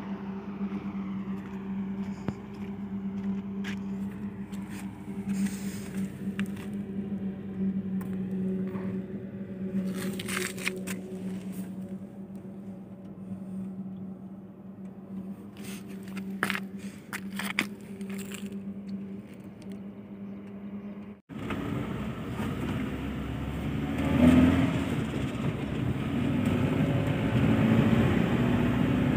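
Engine of a Maruti Suzuki Super Carry CNG pickup idling steadily while parked under a 1600 kg load, with a few brief clicks and scrapes. About two-thirds of the way through it changes abruptly to the louder sound of the loaded pickup driving, engine and tyre noise heard from inside the cab.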